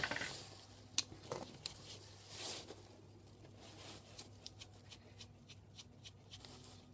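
Small parts of a stripped-down power supply handled by hand: scattered sharp clicks and taps of plastic and aluminium pieces, a soft rustle, then a run of light ticks near the end.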